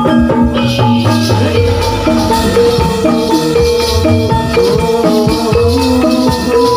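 Javanese gamelan-style dance music, with pitched metal percussion over steady drum strokes. It is mixed with the rattling jingle of a gedruk dancer's leg bells as he stamps.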